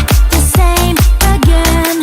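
Electronic dance music without vocals: a steady kick drum on every beat under a synth melody of held, stepping notes. The bass and kick drop out near the end.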